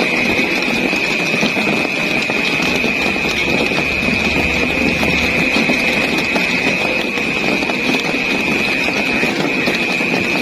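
Steady rain falling, an even wash of noise with a constant high-pitched tone held over it.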